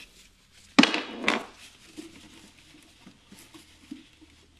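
Plastic and metal clatter from hand work on a car's plastic scuttle panel below the windscreen as electrical connector clips are unclipped: a loud clatter about a second in, a second one just after, then light knocks and rattles.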